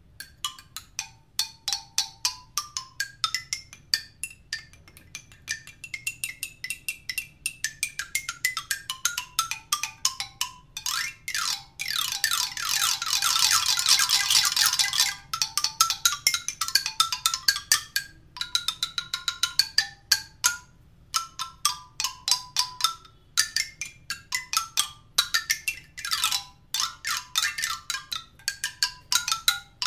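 Vietnamese bamboo xylophone played with two mallets: quick runs of bright notes going up and down the bamboo tubes. A fast, loud roll of strikes runs from about twelve to fifteen seconds in, then the runs carry on.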